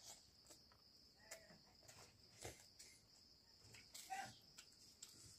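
Near silence: faint room tone with a steady high-pitched hiss and a few soft clicks.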